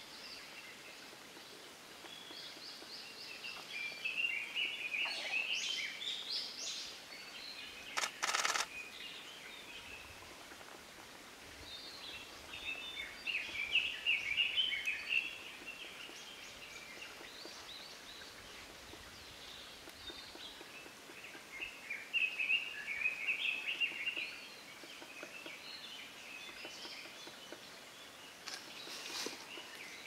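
Small birds singing in three bursts of quick, high chattering notes, with a short, loud knocking burst about eight seconds in and a few sharp knocks near the end.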